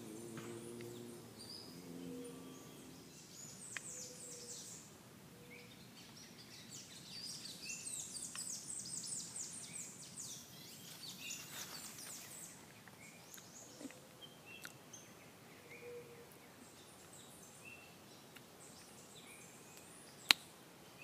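Woodland birds calling with scattered short high chirps, and a rapid high-pitched trill for a few seconds in the middle. A single sharp click near the end stands out as the loudest sound.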